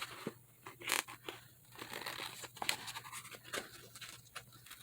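Small craft scissors snipping transparent sticker paper, a run of short irregular cuts with some paper rustle.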